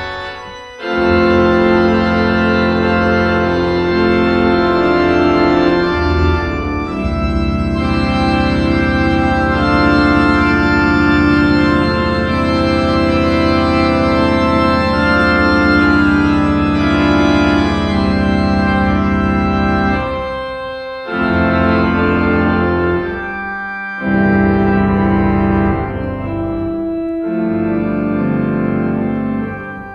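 Three-manual virtual pipe organ playing an improvisation on a hymn tune: full sustained chords over a deep pedal bass, with a few short breaks between phrases.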